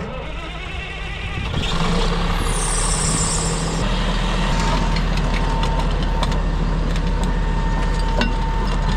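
Caterpillar D6T dozer's six-cylinder diesel engine picks up load about one and a half seconds in as the machine drives forward on its steel tracks, then runs steadily with scattered clanks from the tracks. A brief high hiss sounds about two and a half seconds in.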